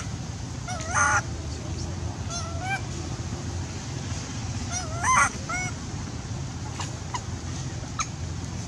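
Baby long-tailed macaque crying: short, wavering, high-pitched calls in small groups, loudest about a second in and again about five seconds in.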